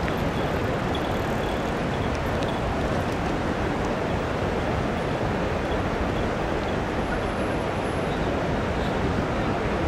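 Steady city ambience at a river bridge: a constant, even rush of traffic noise mixed with flowing river water, with no single sound standing out.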